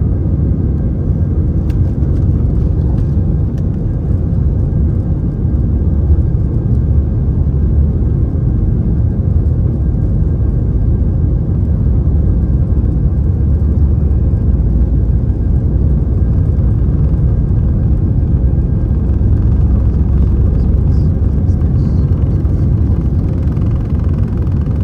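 Steady low rumble inside the cabin of an Airbus A319-111: its CFM56 engines and airflow during the climb shortly after takeoff.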